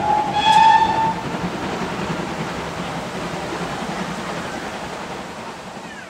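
A train whistle gives a short rising note about a second in, then the train runs on with a steady rumble that fades gradually away.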